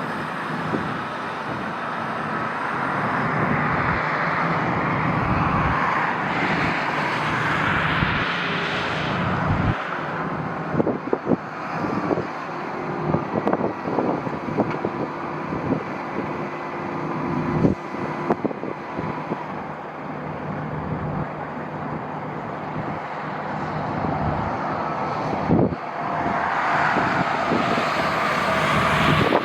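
Jet airliner engines passing, a loud rush with a thin whine that swells twice. Wind buffets the microphone with short thumps in between.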